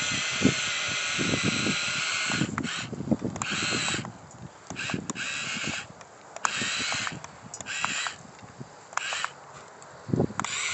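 Upgraded RC excavator's electric drive running with a high whine as it climbs on its tracks, straining, then cutting in and out in short spurts as the controls are worked, with knocks and scrapes from the tracks underneath.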